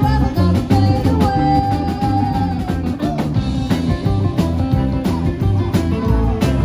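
Live rockabilly band playing: upright double bass, electric guitars and a drum kit keeping a steady beat, with a woman singing.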